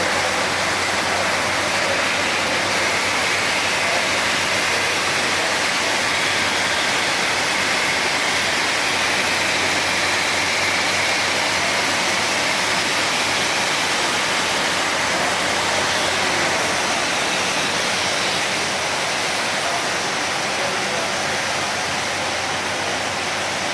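Automatic carpet washing machine running steadily, with a continuous rush of water spray and scrubbing roller brushes.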